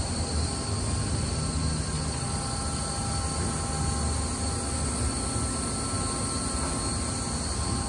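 Steady mechanical background noise: a low rumble with faint, steady high whines over it and no distinct events.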